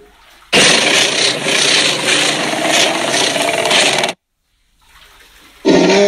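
Tyrannosaurus rex roar sound effect, built from layered animal roars. A harsh, rasping roar with no clear pitch starts suddenly and runs about three and a half seconds, then cuts off abruptly. Near the end a second roar with a clear pitch begins.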